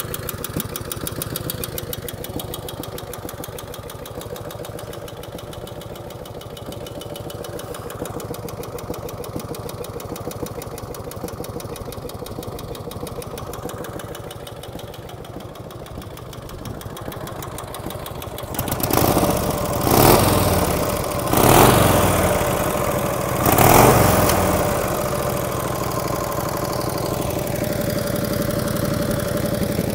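1949 Harley-Davidson Hydra Glide's Panhead V-twin idling with a little tapping noise out of the rear cylinder, shortly after a cold start. The throttle is blipped three times about two-thirds of the way in, then the engine settles back to an even idle.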